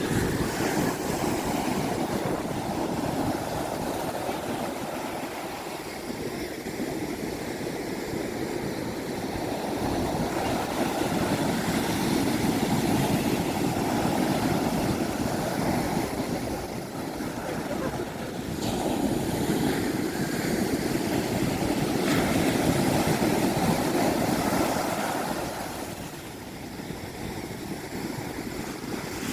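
Sea waves washing in, a steady rush that swells and fades slowly over several seconds.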